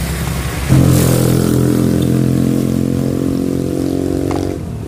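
Motorcycle engine running at a steady pitch. It cuts in suddenly about a second in and stops abruptly near the end.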